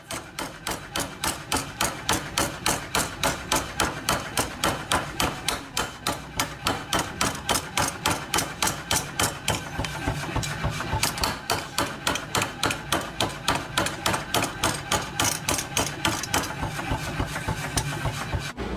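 Mechanical power hammer repeatedly striking a hand-held top tool set on a steel kitchen knife blade, about three blows a second, over the steady hum of the machine running.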